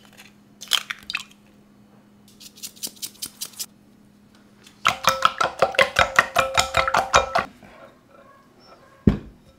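A salt and pepper grinder clicks rapidly for about a second. Then eggs are beaten with a wooden spoon in a tempered-glass mixing bowl: quick, even strokes, about six a second, for a couple of seconds, with the bowl ringing at each stroke. One thump near the end.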